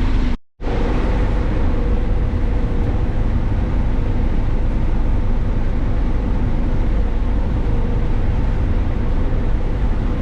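Combine harvester running steadily while harvesting corn: a constant engine and machinery drone with a steady hum. It drops out briefly about half a second in.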